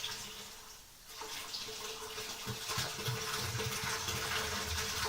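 Water from a sink draining into a sump pit, picking up about a second in and running steadily as the pit fills toward the level that lifts the new sump pump's float.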